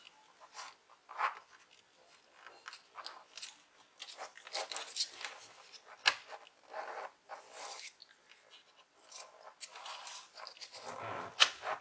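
Hands handling a laptop's battery and open plastic chassis: scattered light clicks, taps and brief scraping rustles, with a fuller bump of handling near the end.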